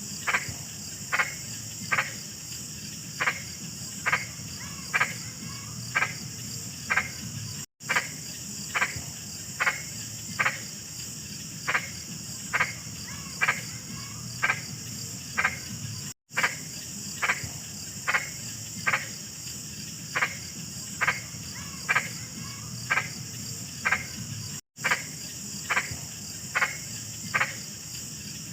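Frogs croaking in short, repeated calls, about one to two a second, over a steady high chirring of insects. The sound cuts out completely for a moment about every eight and a half seconds.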